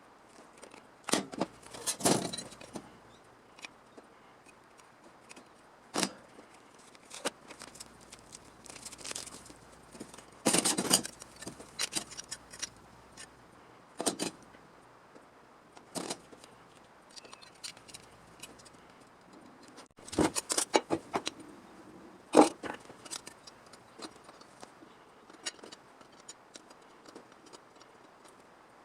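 Irregular metallic clinks, taps and short scrapes of hand tools and sheet-metal parts being handled, with louder clusters about two seconds in, near the middle and around two-thirds of the way through.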